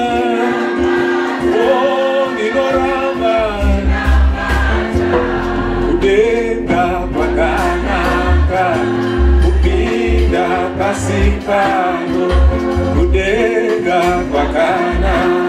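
Shona gospel song: a male lead voice singing into a microphone with a choir of voices joining, over steady held chords. Low bass notes come in about four seconds in.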